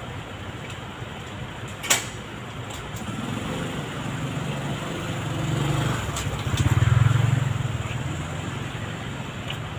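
A motor vehicle passing by: a low engine hum that builds from about three seconds in, is loudest around seven seconds, then fades. A sharp click about two seconds in.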